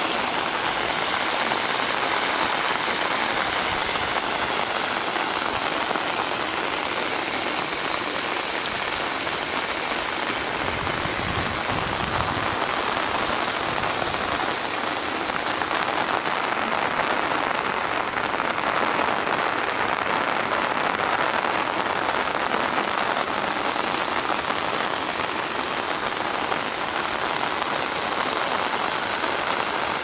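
Heavy rain falling steadily on the ground, with runoff water running through an earthen ditch and over small stone check dams. A brief deeper rumble comes about eleven seconds in.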